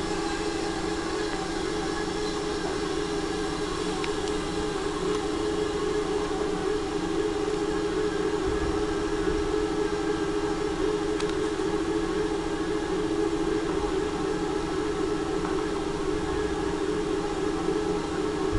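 EN75 electric multiple unit, a Stadler FLIRT, standing at the platform with its onboard electrical equipment giving a steady hum in two close tones.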